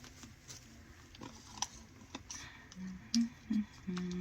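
Scattered light clicks and taps from handling a large diamond painting canvas while measuring it, then a few short, low hums from the person in the last second and a half.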